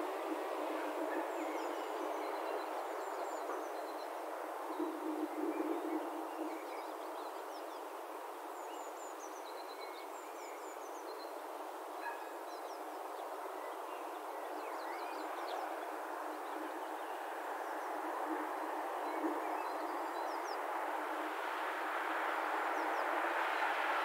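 Electric motor and three-blade propeller of a Parrot Disco fixed-wing drone in flight, a steady whirring buzz that grows louder over the last few seconds.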